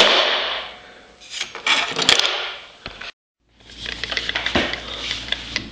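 Pointed steel scribe scratching and clicking on a sheet of aluminium, with sharp metallic clinks. After a short break about three seconds in, rapid light metallic clicking and clinking.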